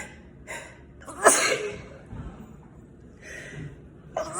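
A person sneezing: one loud, sharp sneeze about a second in, and another sneeze starting at the very end.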